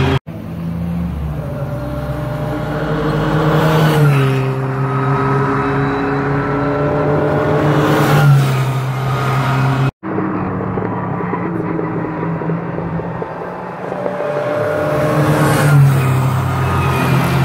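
Formula Ford single-seater racing cars running past on the circuit, the engine notes dropping in pitch as cars go by about four seconds in, near eight seconds and again near the end.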